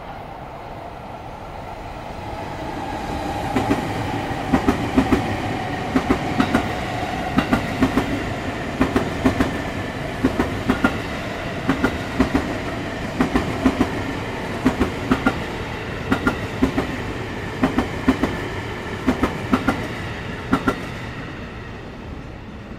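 Japanese Railroad (JR) commuter train passing by. Its wheels click over the rail joints in quick pairs, truck after truck, over a steady rumble and hum. The sound builds over the first few seconds and fades near the end.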